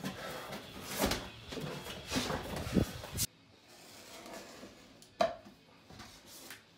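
Sheet vinyl flooring being handled and pressed against a plywood wall: rustling, scraping and a few knocks. After an abrupt change to a much quieter stretch, the vinyl is trimmed with a hand knife, with one sharp click about five seconds in.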